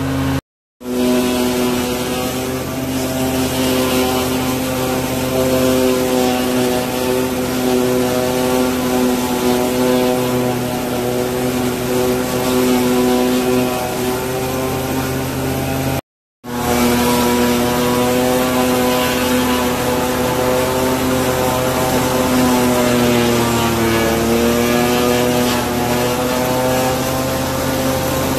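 Engine powering a horse-drawn New Holland 717 forage harvester running steadily as it chops corn, a steady drone with a clear pitch. Its pitch sags briefly near the end and then recovers. The sound cuts out twice for a moment.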